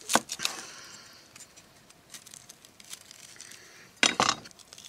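Chef's knife cutting an onion on a wooden cutting board: scattered sharp knocks of the blade on the board, with a louder cluster of strikes about four seconds in.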